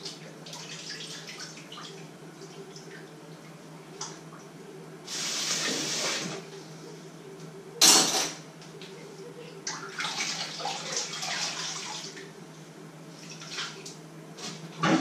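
Water running from a kitchen tap into a sink in two spells, about five seconds in and again about ten seconds in. A loud sharp clank comes between them, with a few light clinks, over a steady low hum.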